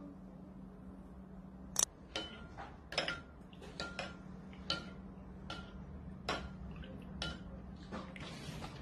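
Metal teaspoon clinking against a white ceramic bowl while instant coffee is stirred into water. Irregular short clinks come about once a second, with the loudest near two seconds in.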